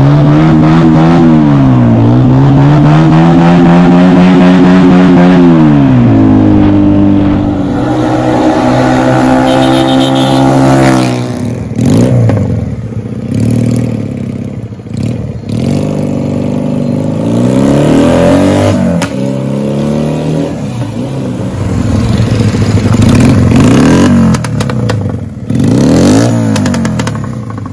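Honda Benly 125T parallel-twin engine breathing through a pair of cheap scrap-yard silencers. It pulls up and down through the revs while riding, runs steady for a few seconds, then is revved in a series of separate blips, each rising and falling.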